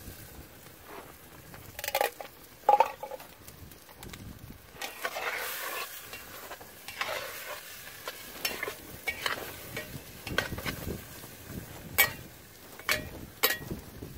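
Metal spatula stirring and scraping diced meat frying in a pot over campfire coals, with sizzling and several sharp clicks of metal on the pot near the end.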